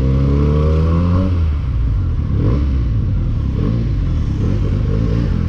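Benelli TNT 300's parallel-twin engine running as the motorcycle is ridden. Its pitch rises slightly over the first second or so, then gives way to a rougher, uneven low rumble.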